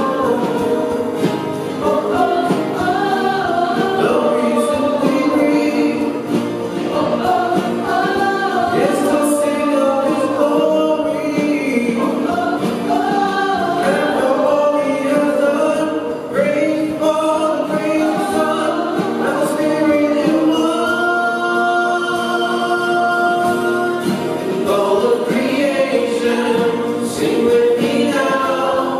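A small church choir of men's and women's voices singing a worship song together in harmony.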